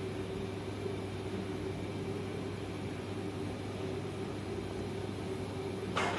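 Steady roar of a gas burner under a large aluminium cooking pot, with a constant low hum. A sharp metallic clatter comes right at the end.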